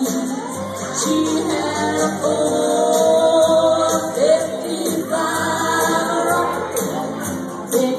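A woman sings into a microphone over backing music, both amplified through PA speakers.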